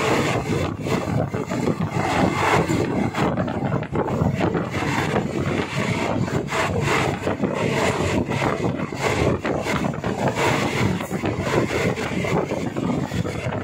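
Passenger train No. 257 running along the line, heard from aboard: a steady rush of running noise with wheels rattling and clacking over the rails.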